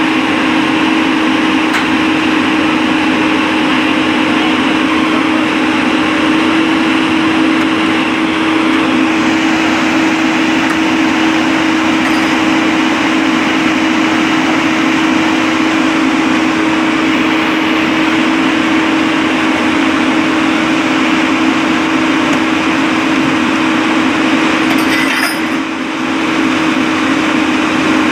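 A heavy machine's engine running steadily with a constant low hum, dipping briefly near the end.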